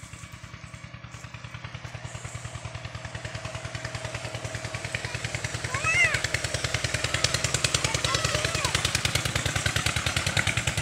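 A small engine running with a rapid, even pulsing beat, growing louder over the first half and then holding steady. A short high-pitched call rings out about six seconds in, with a few fainter calls after it.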